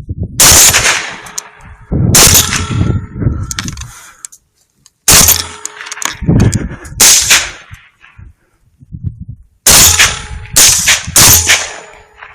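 Rifle shots from hunting rifles fired at hogs, about eight in twelve seconds in an uneven string, each a sharp crack with a brief ringing tail.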